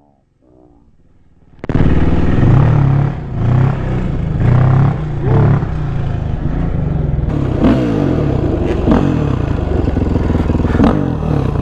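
Dirt bike engine running under throttle, its pitch rising and falling as the rider revs and eases off. It comes in suddenly about two seconds in, after a faint quiet start, with some clatter from the rough ride.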